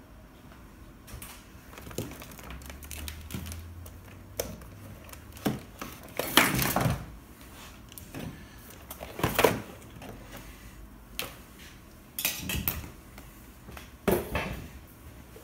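Laptop and test gear being moved about and set down on a wooden workbench: irregular knocks, bumps and clatters, the loudest about six and nine seconds in.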